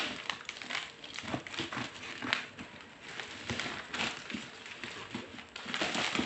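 Bubble wrap and plastic packaging being pulled and handled: irregular crinkling and rustling with scattered light knocks, loudest near the end.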